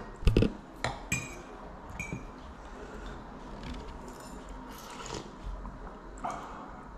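A metal spoon clinking against a ceramic soup bowl: a dull thump just after the start, then a few sharp clinks in the first two seconds, two of them ringing briefly. After that only faint small sounds.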